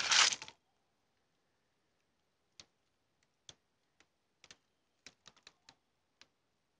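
A brief loud rustle at the very start, then faint, sharp clicks and small crackles at irregular intervals, bunched several to a second a little past the middle.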